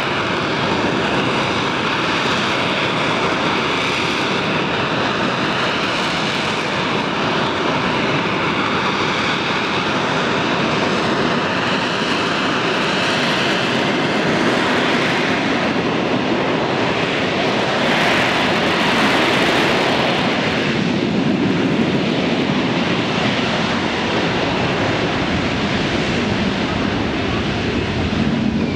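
McDonnell Douglas AV-8B Harrier II's Pegasus turbofan running loud during a flying display: a steady jet roar with a high whine over it, swelling louder about two-thirds of the way through.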